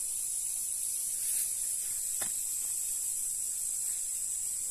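Steady high-pitched insect chorus, with a faint click about two seconds in.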